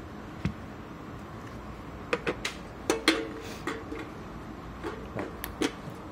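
Scattered light knocks, taps and clicks of speaker boxes and their packaging being handled and set down during an unboxing, several of them in quick succession from about two seconds in.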